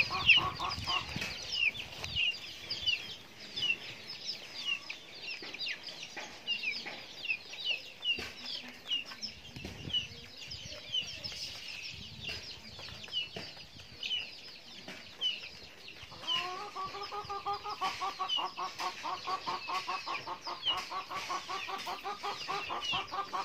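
Chickens feeding: short, high, falling peeps repeat over and over. In the first second and again from about two-thirds of the way through, an adult chicken clucks in a quick, even run.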